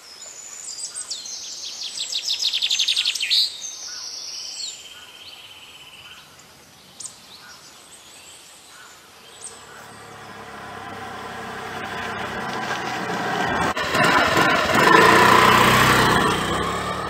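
Birds calling and chirping, with a fast trill about two to three seconds in. From about ten seconds in, a steady humming drone swells, is loudest about fifteen seconds in, then fades near the end.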